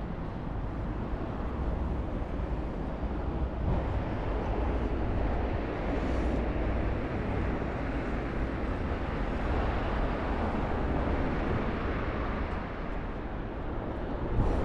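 Steady city street noise with road traffic going by, swelling a little about four seconds in and again around ten seconds.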